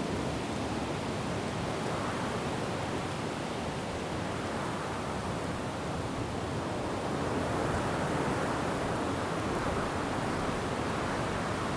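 Wind blowing through forest trees with rain falling: a steady rushing that swells about two seconds in and again, more strongly, from about seven seconds on.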